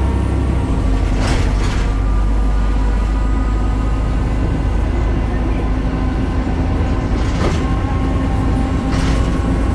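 BredaMenarini Avancity Plus city bus running steadily, its Deutz Euro 5 diesel engine humming low with several steady whining tones above it. Brief rattles come about a second in, again near two seconds, and twice more near the end.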